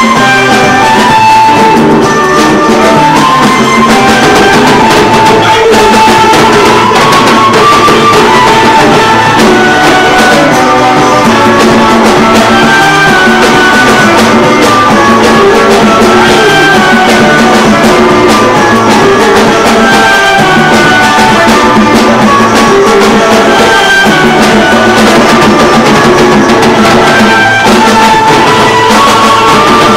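Live band music with a drum kit and guitar, loud and steady.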